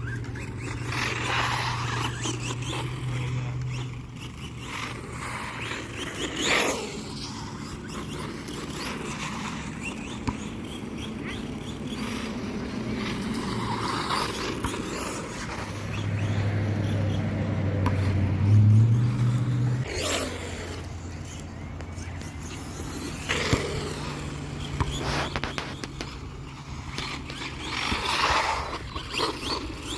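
Team Associated DR10 RC car running over dirt, its tires scraping in several short bursts, with a low steady hum underneath that shifts in pitch now and then.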